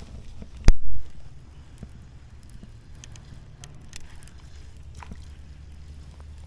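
A single sharp thump, by far the loudest sound, under a second in. After it a baitcasting reel is wound in with a few faint clicks over a steady low rumble.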